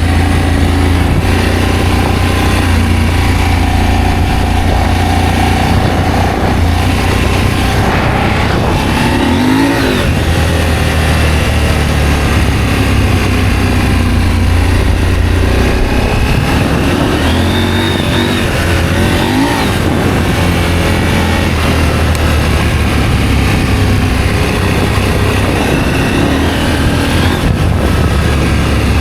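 Adventure motorcycle engine running under way, its revs rising and falling a couple of times over a steady low rumble.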